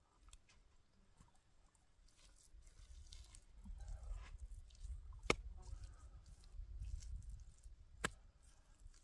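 Faint patting and crunching of wet mud and soil being handled and pressed into a wooden brick mould. Two sharp clicks come about five and eight seconds in, over a low rumble that builds from about three seconds in.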